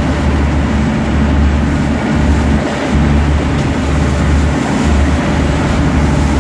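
Strong wind buffeting the microphone over rushing water and blown spray aboard a pilot boat underway in storm winds, with a heavy low rumble that drops out briefly a few times.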